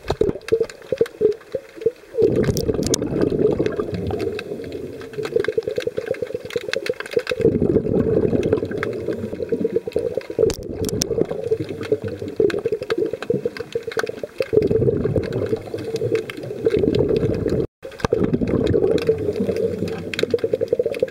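Underwater water noise picked up by the camera: a constant churning rush that swells into heavier surges every few seconds, with a momentary cut-out about two-thirds of the way through.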